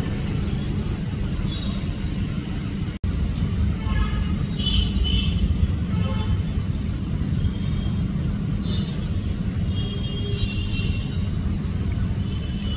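Steady low outdoor rumble with faint high chirps here and there; it cuts out for an instant about three seconds in.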